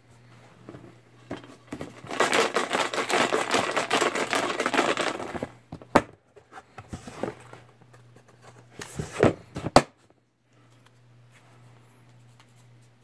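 Paper crinkling and rustling for about three seconds, then a few sharp clicks and knocks; this fits slips of paper being handled while names are drawn.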